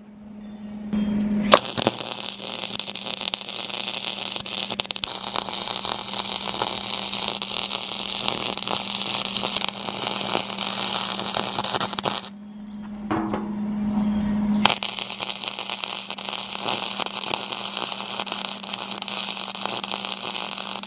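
MIG welder arc crackling steadily while welding steel pipe fittings. It starts about a second and a half in, stops for about two and a half seconds past the middle, then runs again as a second bead. A steady low hum runs underneath.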